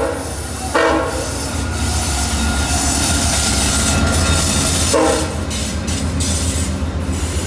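VIA Rail passenger train passing close at a station platform: the locomotive's engine rumbles steadily under the noise of wheels on rail. Short horn blasts sound at the start, about a second in, and again about five seconds in.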